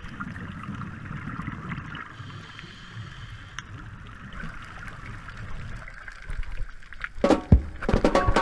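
Underwater sound picked up by a camera in its waterproof housing: a steady low rumble of moving water with a faint hiss. About seven seconds in, loud sharp knocks and rushing bursts break in.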